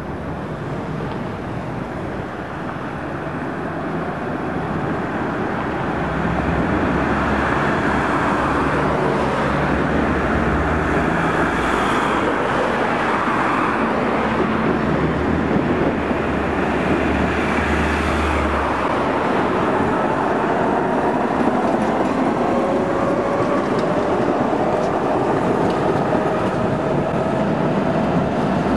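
Tatra trams running on street track, a steady rumble of wheels on rail mixed with road traffic that grows louder a few seconds in. A faint rising whine comes in near the end as a tram pulls away.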